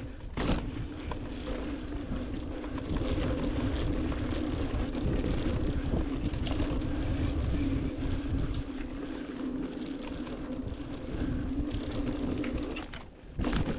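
Mountain bike riding fast down a dirt trail: rough, continuous rumble of wind and tyre and frame rattle, with a steady hum underneath that drops away briefly near the end.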